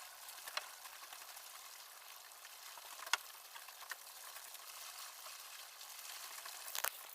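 Faint steady hiss with a few light clicks scattered through it, the loudest about three seconds in.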